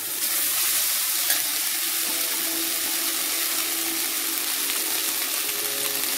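Cooked rice sizzling as it goes into a kadai of hot sesame-oil tempering and is stirred with a metal spatula: a steady hiss, with one light tap of the spatula about a second in.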